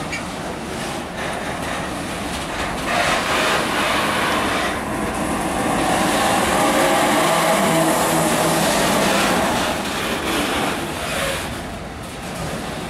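Container-laden flat wagons of an intermodal freight train rolling past, their wheels running on the rails. It gets louder for several seconds in the middle and then eases off.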